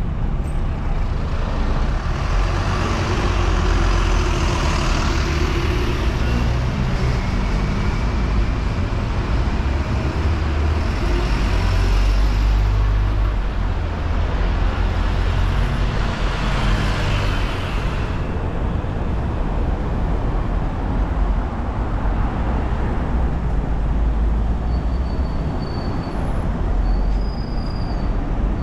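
Busy road traffic: vehicles passing close by one after another over a steady low rumble.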